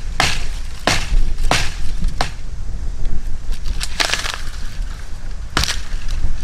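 Dry branches snapping by hand: about six sharp cracks at irregular intervals, over a steady low rumble.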